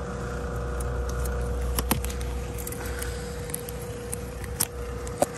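A steady low machine hum with one faint steady tone under it, and a few sharp clicks and rubs from fingers handling the phone over its microphone.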